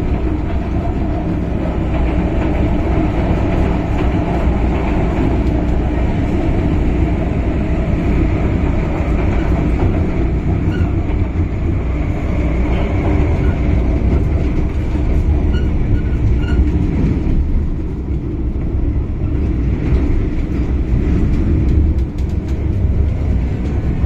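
MTR M-Train electric multiple unit running, heard from inside the passenger car: a steady rumble of wheels and running gear with some rail clatter. The higher hiss drops away about eighteen seconds in.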